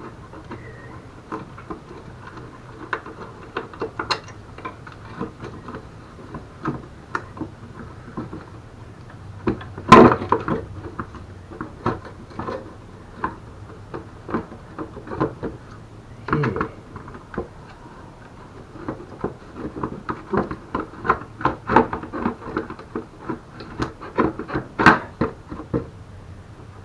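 Irregular clicks and clanks of hand tools and metal parts while the front bumper of a mobility scooter is unbolted, with one loud knock about ten seconds in and quicker clicking in the last third.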